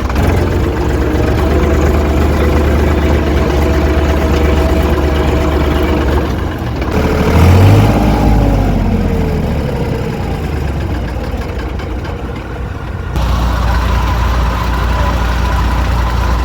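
Combine harvester running steadily with a deep engine hum. About halfway through its pitch rises and falls briefly, and near the end the sound changes abruptly.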